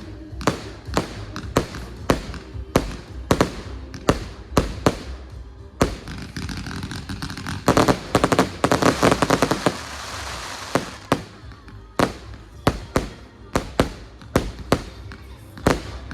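Fireworks going off: sharp bangs about two a second, with a dense burst of rapid crackling in the middle, over background music.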